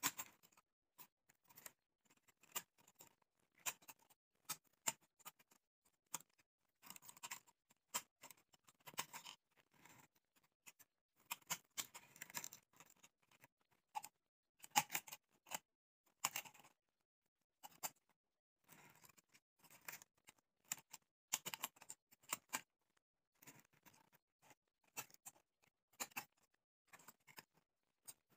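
Scissors snipping through strips of a thin green plastic bottle: many short, sharp cuts at an irregular pace, with a brief pause about two thirds of the way in.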